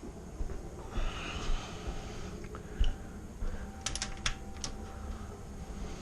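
Small clicks and taps of hand tools and parts being handled at the engine, with one knock about three seconds in and a quick run of sharp clicks about four seconds in.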